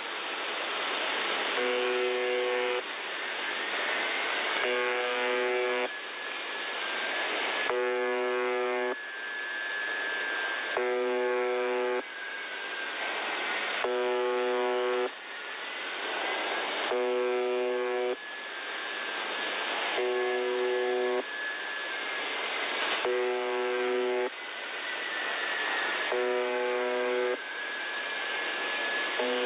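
The Buzzer (UVB-76) shortwave signal on 4625 kHz, received in upper sideband: a rasping buzz tone about a second long, repeating roughly every three seconds, with radio static hiss between the buzzes. A faint whistling tone slides slowly up and down in pitch over the top.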